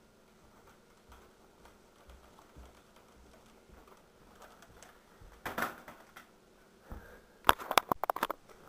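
Soft footfalls on carpeted stairs, then a short clatter about halfway through and a rapid run of sharp clicks and knocks near the end, like hard plastic being handled.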